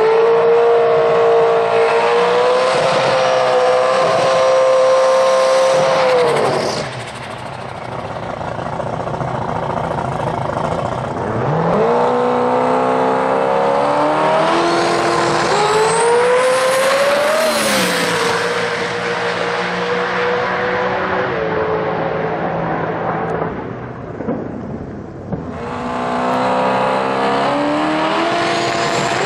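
Holden Commodore ute drag car's engine revved high and held steady for about six seconds, then dropping away. The revs climb and fall again through the middle, settle low as the car stages, and rise steeply near the end as it launches.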